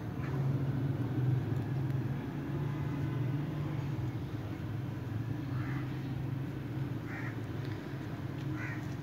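Steady low background hum with three short caws, about a second and a half apart, in the second half.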